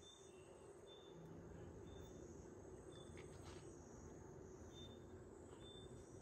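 Faint evening crickets: short high chirps repeating about once a second over a steady high insect hum, with a few faint clicks about three seconds in.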